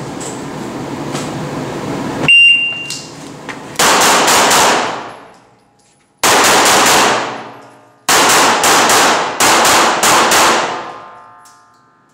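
A shot timer's start beep, then rapid strings of 9×19mm pistol shots from a CZ75 SP-01 Shadow in three groups: about five, then a few, then a longer run. Each shot echoes in the indoor range.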